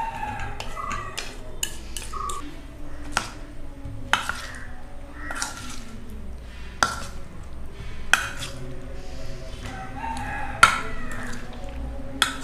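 Steel spoon clinking irregularly against a stainless steel bowl as boiled cauliflower florets are stirred into a thick batter. A rooster crows in the background.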